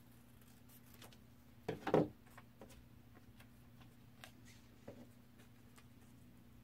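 Scissors snipping double-sided colored paper in a few faint clicks, with paper being handled, over a faint steady hum. A louder brief knock comes about two seconds in.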